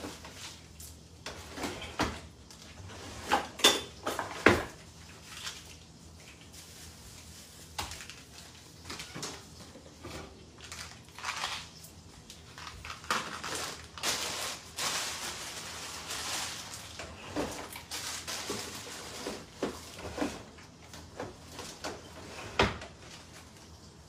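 Kitchen handling noises: scattered knocks and clinks of things being moved about, with the loudest knocks a few seconds in, and a longer stretch of rustling in the middle.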